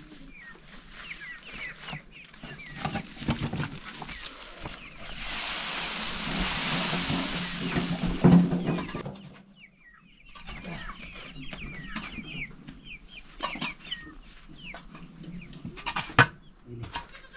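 Domestic chickens clucking on and off, with a steady hiss for about four seconds midway and a sharp knock near the end.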